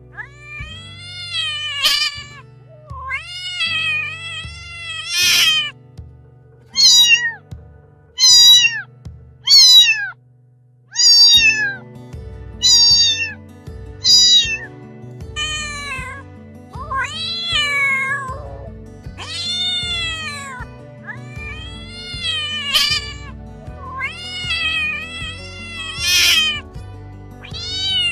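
A cat meowing again and again, one meow every second or two, each rising then falling in pitch, over background music whose low notes drop out for a moment about ten seconds in.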